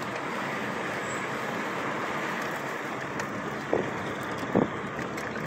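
Steady road and engine noise of a car driving slowly through town, heard from inside the cabin. Two brief louder sounds come a little past halfway.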